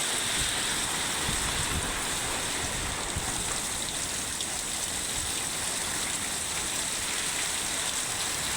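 Heavy rain pouring down steadily, a dense even hiss of rain on surfaces.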